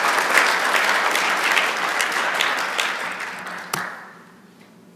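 Audience applauding, a dense patter of clapping that dies away about four seconds in.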